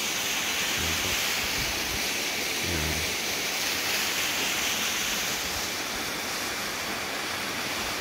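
Steady rush of water from a stream and waterfall pouring over rocks.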